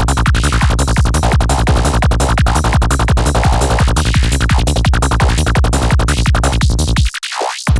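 Electronic trance dance music with a fast, driving kick drum and a rolling bassline. Near the end the kick and bass cut out for about half a second under a rising high sweep, then come back.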